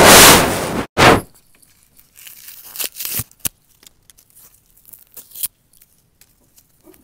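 A loud rush of noise close to the microphone for almost a second, then a second shorter burst. After that, quiet crinkling and tearing of candy wrappers with scattered small clicks, as fingers pull a piece of candy apart.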